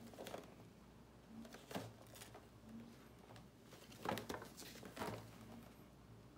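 Gloved hands handling and turning over a cardboard-and-plastic window box: scattered soft rustles and light knocks of the box, the loudest a little after four seconds in.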